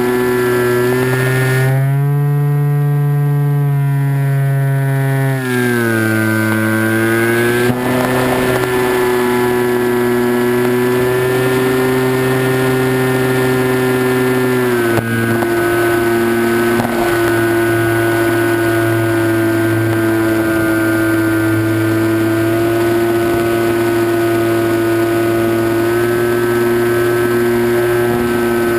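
Electric motor and propeller of an RC flying wing, heard from the onboard camera: a loud, steady whine with several tones together. It rises in pitch about two seconds in, falls back a few seconds later, and dips slightly again about halfway through.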